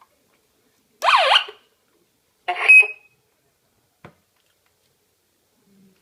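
Two short electronic alarm sounds: first a half-second burst sweeping up and down in pitch like a siren, then a noisy burst ending in a brief steady high beep. A faint click follows about four seconds in.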